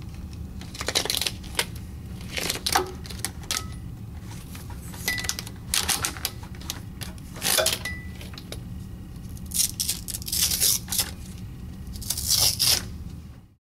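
Bindings being taken off bundled classroom cables: irregular clicks, rustles and small metallic clinks of the cables and fasteners being handled, over a steady low hum. The sound cuts off abruptly near the end.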